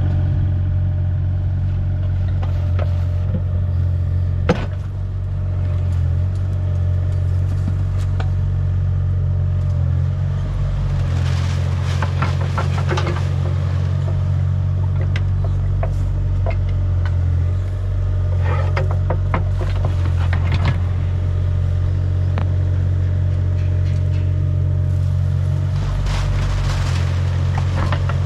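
Engine of heavy digging equipment running steadily with a low drone. Scattered clanks and scrapes come through it a few times, about 4 seconds in, around 11 to 13 seconds, around 18 to 21 seconds, and near the end.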